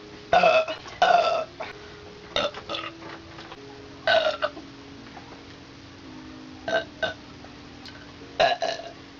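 A string of about six short, loud burps, spaced a second or two apart, the two loudest in the first second and a half. Faint background music with long held notes runs underneath.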